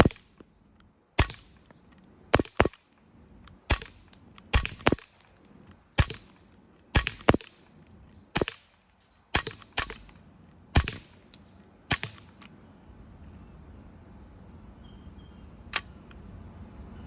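Glock 19X CO2 BB air pistol fired in a rapid string of about fifteen sharp shots, roughly one a second with some quick doubles, then one last shot near the end. This is the pistol firing freely after its heavy, sticking trigger was fixed.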